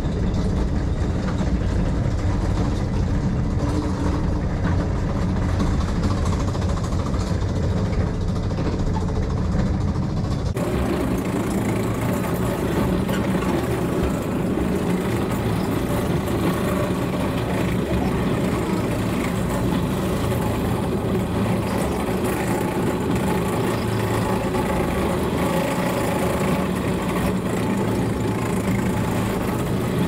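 Small mountain monorail car's engine running steadily as the car crawls along its rail, heard from on board. About ten seconds in the sound jumps higher in pitch where the footage switches to double speed.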